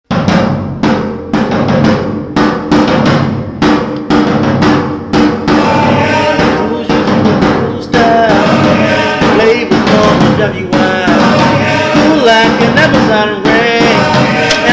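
Music with a driving drum-kit beat, bass drum and snare, starting abruptly; about halfway through a melody with sliding pitches comes in over the beat.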